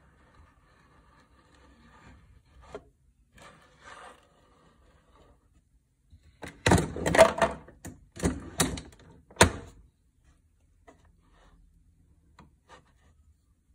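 Handling noise of hard objects: a burst of sharp clicks, knocks and clatter lasting about three seconds midway, with a few quieter taps before and after.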